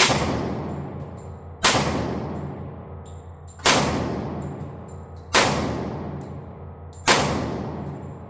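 Five shots from a Tisas D10 1911 pistol in 10mm, fired one at a time about every two seconds. Each shot is followed by a long echo dying away.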